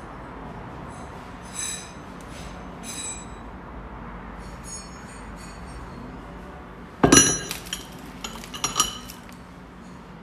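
Steel L-shaped socket wrenches clinking against each other as they are handled: a few light ringing clinks, then a louder metal clatter about seven seconds in and another shortly after.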